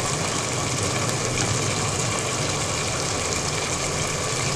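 Rice boiling in a large aluminium pot of water at a steady rolling boil; the basmati is being parboiled to about 60–70% done.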